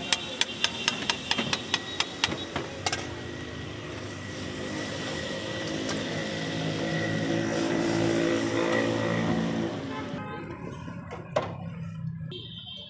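Burger buns toasting in butter on a flat steel griddle with a light sizzle, and a quick run of sharp metal taps for the first few seconds. A vehicle engine running close by grows louder through the middle and fades out about ten seconds in.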